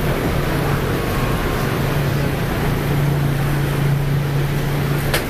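Steady street traffic noise with a low engine hum that grows stronger in the middle, and a single sharp click near the end.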